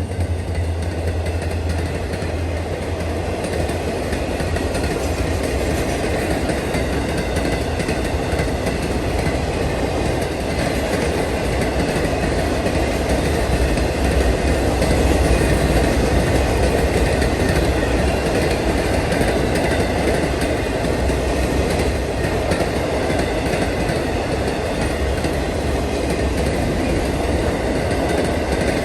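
CN freight train rolling past: a steady rumble and rattle of the cars on the rails, with a low drone underneath.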